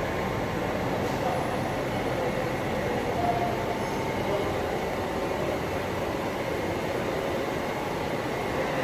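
Steady rumble and hiss of running machinery, even throughout, with a few faint steady tones over it.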